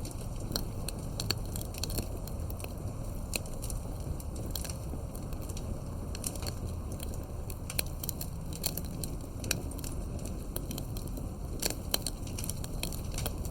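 A fire burning steadily, with frequent irregular crackles and pops over a low, even rush.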